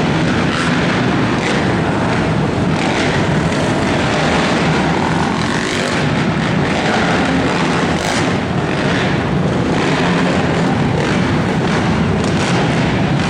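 Several racing ATV (quad) engines running hard together, their revs rising and falling as riders accelerate and back off around the track, a dense continuous din in an indoor arena.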